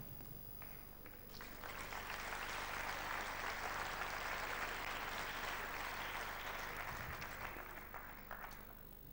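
Studio audience applauding: a few scattered claps at first, then the applause swells about a second in and dies away near the end.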